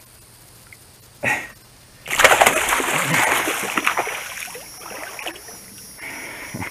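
A hooked bowfin thrashing at the water's surface, a loud burst of splashing starting about two seconds in and dying away into sloshing over the next few seconds.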